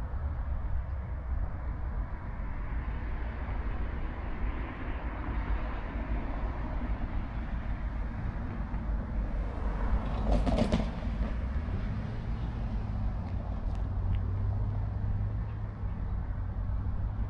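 CN freight train rolling past: a steady low rumble of wheels on rail, with a brief louder clatter about ten seconds in.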